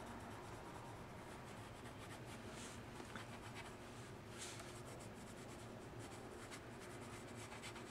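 Coloured pencil scratching on drawing paper in quick, repeated shading strokes, faint.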